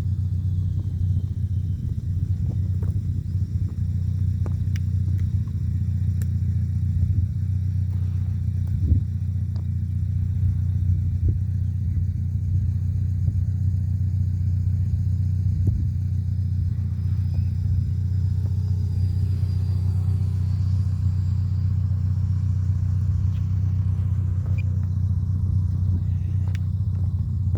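Steady low rumble throughout, with the faint whine of an electric ducted-fan RC jet in flight, rising and falling in pitch as it passes.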